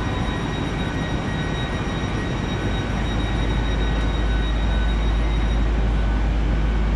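Lumo Class 803 electric train standing at the platform, giving a steady hum with faint high-pitched whines from its onboard equipment. Over this runs a low rumble that grows slightly louder past the middle.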